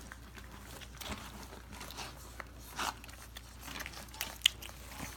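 Puppies suckling at a standing mother dog: irregular small smacks and clicks, with one sharper click about four and a half seconds in.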